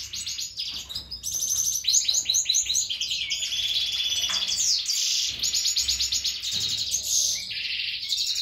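European goldfinch singing a fast, continuous twittering song of quick notes and trills, with a brief lull about a second in. The song is that of a bird in breeding condition.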